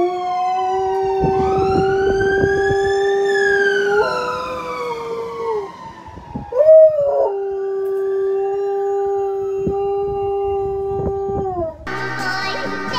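A husky-type dog howling in long held notes, with a siren wailing up and down alongside it. The howl breaks off briefly about six seconds in, then resumes. Music cuts in just before the end.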